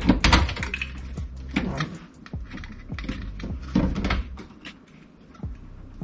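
Scattered clicks and knocks of a large graphics card (Gigabyte RTX 3080 Eagle) being handled and pressed into a tight-fitting small-form-factor PC case, its shroud and bracket tapping against the case frame. The louder knocks come at the start, about two seconds in and about four seconds in.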